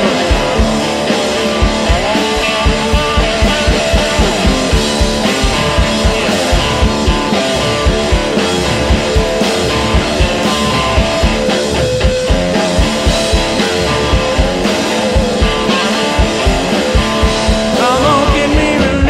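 Background rock music with a steady beat and a singing voice.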